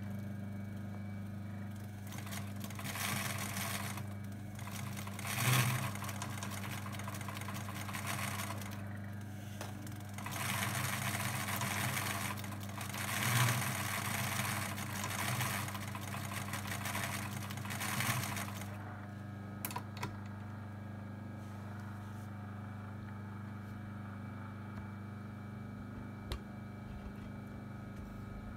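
Adler 189A vintage zig-zag sewing machine stitching at speed, easing off briefly twice. It stops about two-thirds of the way through, with a couple of sharp clicks just after. A low steady hum lies under it throughout.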